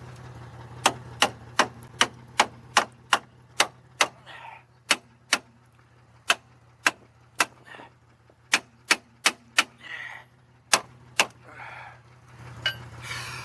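Sharp metallic taps, about twenty in all, in uneven runs with short pauses and a few brief scrapes between them, over a low steady hum.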